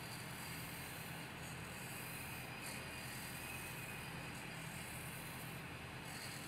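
Faint, steady machinery hum and hiss of a glass factory floor, with no distinct knocks or clinks.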